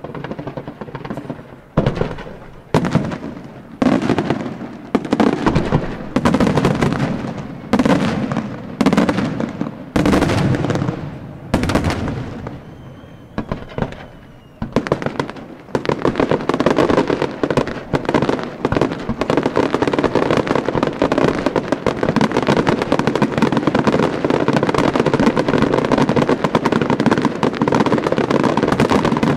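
Aerial fireworks shells bursting, at first as separate loud bangs about once a second with crackling between them, then, from about halfway through, a dense continuous barrage of rapid bangs and crackle. A brief faint whistle sounds in the lull just before the barrage.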